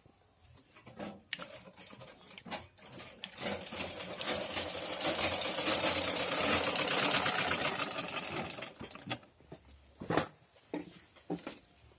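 Sewing machine stitching: a fast, even run of needle strokes starts about three seconds in, builds up and eases off, and stops around nine seconds. A few separate clicks and knocks come before and after the run.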